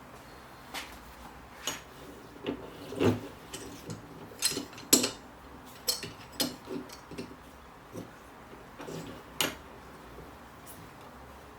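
Irregular clinks and knocks of hard objects being handled, about a dozen spread unevenly, the loudest about five seconds in.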